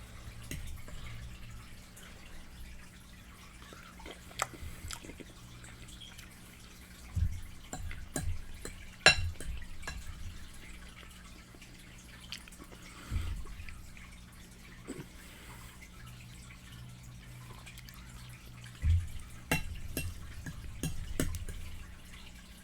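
Close-miked eating sounds of a person chewing fried chicken: wet, smacking mouth noises with sharp clicks now and then. A steady low hum runs underneath.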